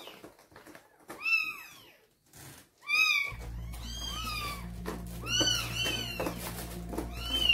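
Maine Coon cats meowing repeatedly, about six high-pitched calls that each rise and fall. A steady low drone comes in about three seconds in and continues under them.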